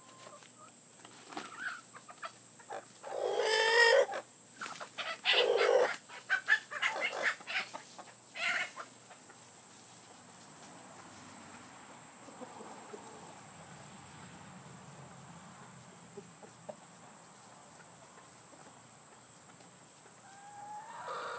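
Chickens calling: a loud rooster crow about three seconds in, then another loud call and a run of shorter clucks over the next few seconds. A quieter stretch follows, and clucking picks up again near the end.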